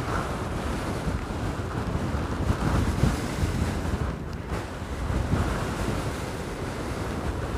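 Wind buffeting the microphone: a low rushing noise that swells and falls in gusts.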